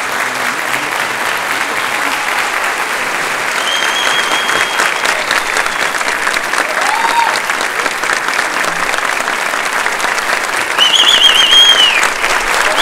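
Sustained applause from a large audience and the choir, dense steady clapping with a few short high calls rising above it, growing a little louder near the end.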